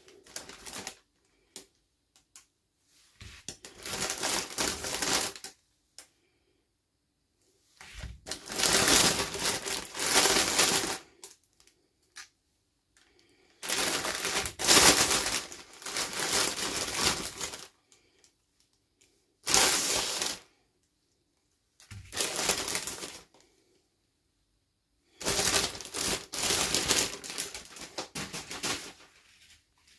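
Toy packaging being handled and opened: plastic crinkling, with small clicks and rattles. It comes in a series of bursts a second to a few seconds long, with silent gaps between them.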